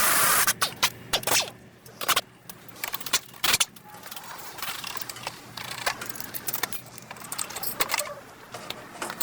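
A short loud burst of noise, then irregular metallic clinks and scrapes of tools and parts being handled during a front CV axle replacement.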